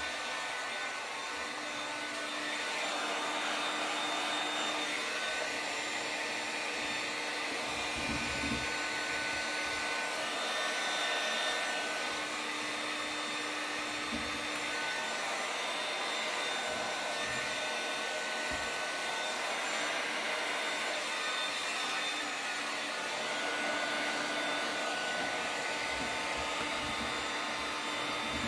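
Electric air-moving motor running steadily with a rushing whine, the vacuum-forming setup working the wrap film onto the steering-wheel trim.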